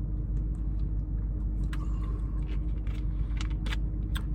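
Steady low rumble of a car interior with an engine running, with several sharp short clicks and taps scattered through it.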